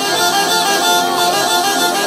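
Launeddas, the Sardinian triple reed-pipe, playing a winding melody over a steady held drone.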